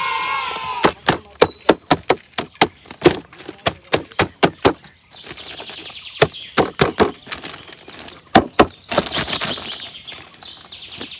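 Sharp clicks and knocks from a die-cast model Jeep being handled, coming two or three a second in the first half. Fainter rattling fills the middle, and a second cluster of knocks comes near the end.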